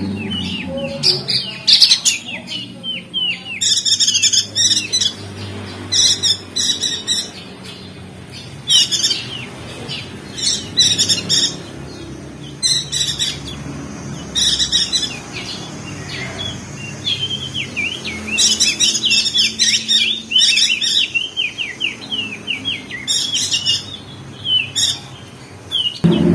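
Crested dark-eye (opior jambul, known in Lombok as perenjak daun) singing in repeated bursts of rapid, high, falling chirps and trills, each burst about a second long with short pauses between.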